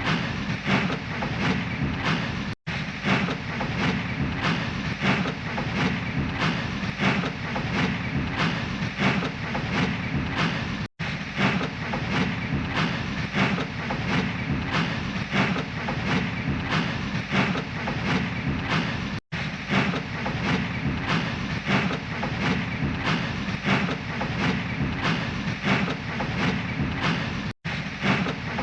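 Steam locomotive puffing slowly, in a steady, even rhythm of chuffs. The sound cuts out for an instant about every eight seconds.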